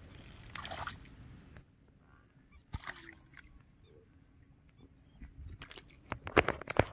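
Shallow water splashing and sloshing as a hand reaches in among weeds and grabs a small fish: a few short splashes early on the way in, then a quick run of sharper splashes, loudest near the end.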